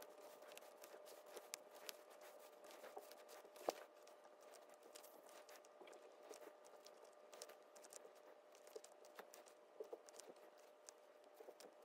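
Faint, irregular snips and clicks of curved hobby scissors cutting the small rubber side knobs off a 1/18-scale RC crawler tire, with one sharper snip nearly four seconds in. A faint steady hum runs underneath.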